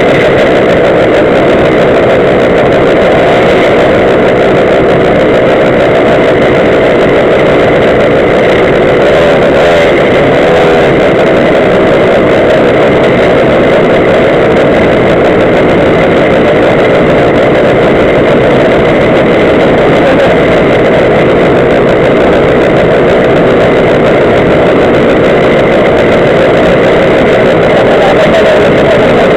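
Several Go-ped scooters' small two-stroke engines running and idling together, a loud, steady drone.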